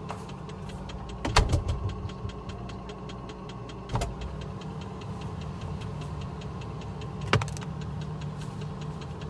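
Refrigerator running with a steady low hum and an even faint ticking, about four ticks a second. Knocks from the door and containers being handled come about one, four and seven seconds in.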